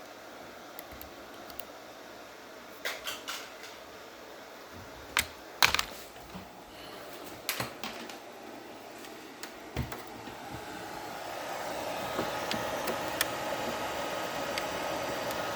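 Scattered clicks and taps from a Corsair K55 RGB Pro membrane keyboard being handled and pressed a few keys at a time, with gaps between. A steady hiss swells up in the last few seconds.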